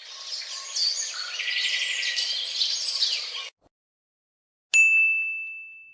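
Birds chirping and twittering for about three and a half seconds, then a pause, then a single bright ding that rings on one high tone and fades over about a second and a half.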